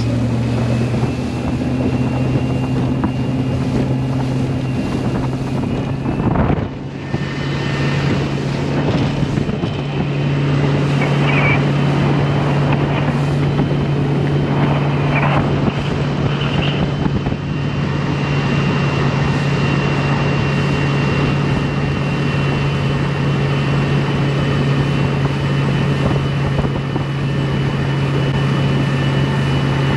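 Mercury outboard motor running steadily at speed, pushing a small boat across open water, with wind on the microphone. The engine note dips briefly about six seconds in, then settles a little higher.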